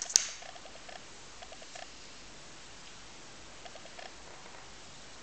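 A flexible screen protector being handled and laid onto a phone screen: one sharp click just after the start, then a few faint, light clicks and taps from fingers on the film and glass, over a steady hiss.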